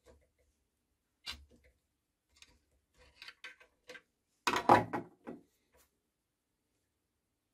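Small metal parts being handled on a lathe's cross-slide: the brass spindle nut and tools tap and click against the metal slide. A few scattered clicks build to a louder clatter about four and a half seconds in.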